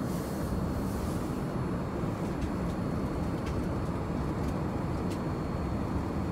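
Steady low cabin rumble inside a Boeing 787 Dreamliner, the engine and air noise heard at a passenger seat, with a few faint clicks.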